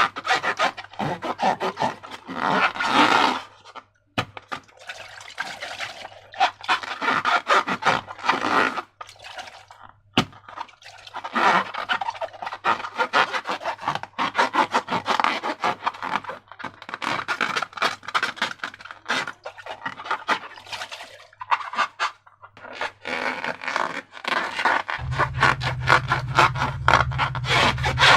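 Slime being worked by hand: runs of wet, crackly clicking and squelching a few seconds long, with short pauses between them. A low steady hum comes in near the end.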